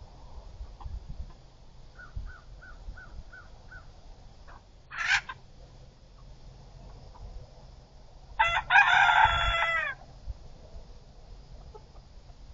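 American Bresse chickens: a quick run of six soft clucks, a short loud squawk about five seconds in, then a rooster crowing once for about a second and a half, the loudest sound, with a slight drop in pitch at the end.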